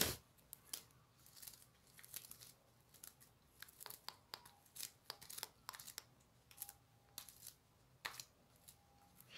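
Yellow slime being stretched and pulled apart between fingers, making faint, irregular little sticky clicks and crackles.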